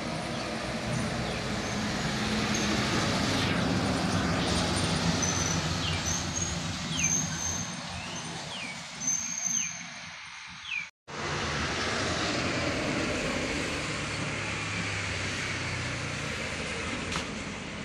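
Light truck engine running as the truck passes on the road, with a motorcycle engine going by. The sound drops out for a moment about eleven seconds in, then the truck and motorbike engine noise carries on.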